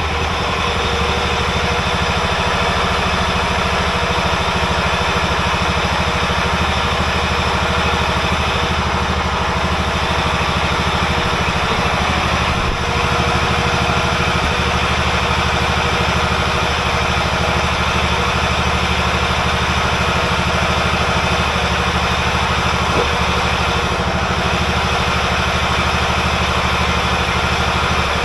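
John Deere engine running steadily at idle, just after being started.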